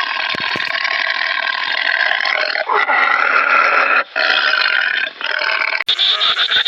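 An animal making long, drawn-out harsh calls, one after another, with short breaks between them. Near the end it cuts abruptly to a different, higher call that pulses rapidly.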